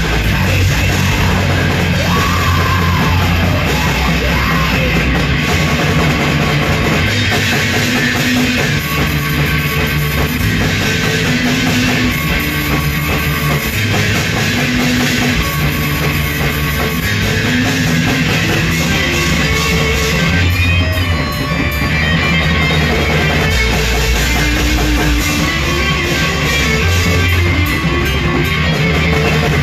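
Heavy metal band playing live: electric guitars, bass and drum kit, loud and steady, the low notes changing every second or two.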